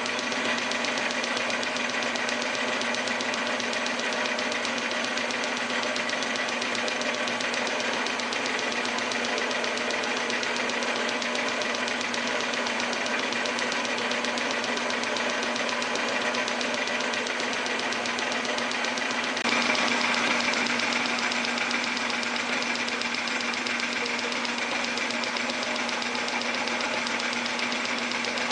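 Metal lathe running under power while a boring bar cuts the bore of a sleeve: a steady mechanical whir with a low hum and a high gear-like whine. It gets briefly louder and brighter about two-thirds of the way through.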